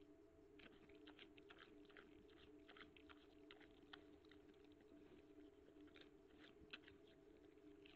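Wild boar sow chewing as it forages with its snout to the ground: faint, irregular crunching clicks, one a little louder about three-quarters of the way in, over a steady low hum.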